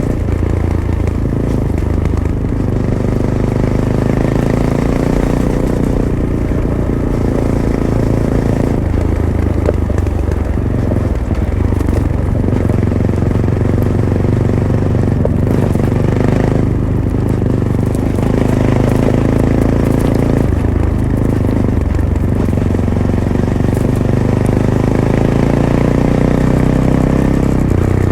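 Fantic Caballero 500's single-cylinder engine through its stock Arrow exhaust, ridden on a dirt track. The engine note climbs several times as the throttle is held, then drops off briefly as the throttle closes or the gear changes.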